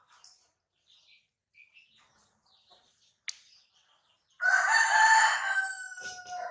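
A rooster crows once, a loud call of about two seconds starting some four seconds in and dipping slightly in pitch as it trails off. Before it there are faint bird chirps and a single sharp click.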